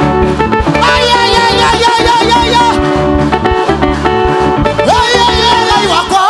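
Loud live praise music with a steady beat, guitar and singing.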